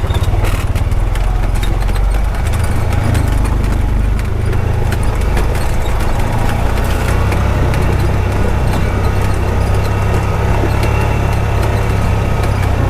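Honda Pioneer 520 side-by-side driving steadily, its single-cylinder engine running under load, with frequent knocks and rattles from the machine over the track.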